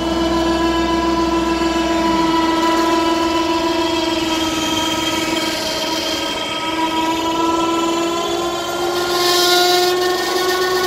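Electric motor of a BoatHoist Sidewinder boat loader running under load with a steady whine, lifting a boat up over a ute's roof rack.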